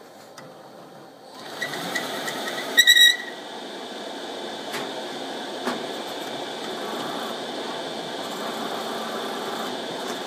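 HP Designjet T7100 turret motor and gear train starting up about a second in, giving a quick run of squeaks and then a loud, short squeal before settling into a steady mechanical run with a high whine. The squeaking is from a gear that needs grease.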